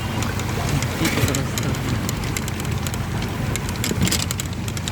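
A motor vehicle's engine running steadily, with many short sharp ticks and splashes scattered over it.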